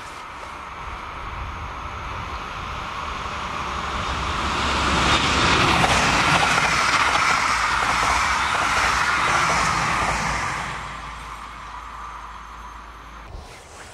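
Passenger train with double-deck coaches approaching, passing close by on the rails and then fading away. It is loudest for about five seconds in the middle.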